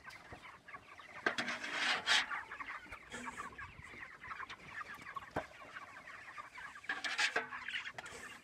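A flock of white broiler chickens clucking steadily, with the grainy rustle of a metal scoop digging into loose chicken feed twice, about a second in and near the end, and a sharp click in between.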